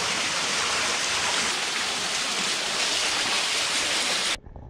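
Waterfall water rushing steadily as one even hiss, cut off abruptly near the end.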